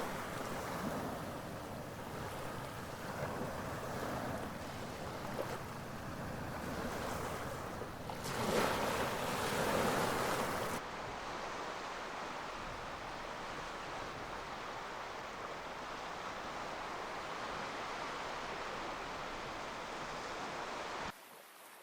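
Black Sea waves washing against the shore, a steady rushing wash with one louder surge about nine seconds in. The sound turns duller about eleven seconds in and drops away suddenly at the very end.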